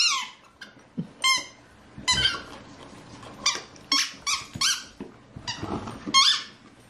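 A dog's squeaky toy squeaking in short, irregular squeezes as an Alaskan Malamute puppy chews it, about ten squeaks that bend up and down in pitch.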